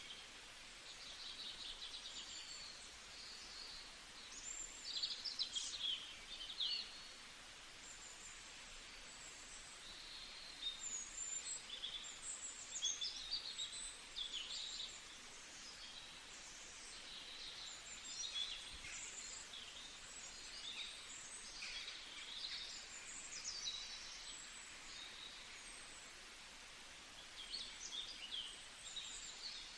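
Several small songbirds chirping and trilling in short, irregular phrases over a faint, steady background hiss.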